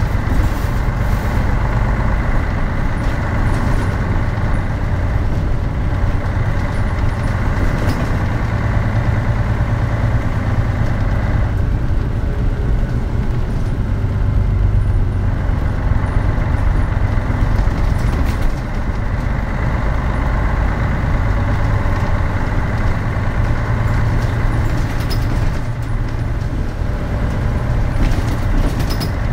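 Mitsubishi Fuso Aero Star city bus (KL-MP37JK) heard from inside the passenger cabin: its diesel engine runs steadily, with road and body noise.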